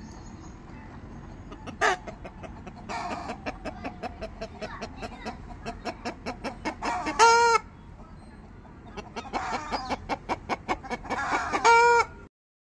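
Aseel chicken clucking in two fast runs of several clucks a second. Each run ends in a short, loud squawk, and the second one near the end is cut off abruptly.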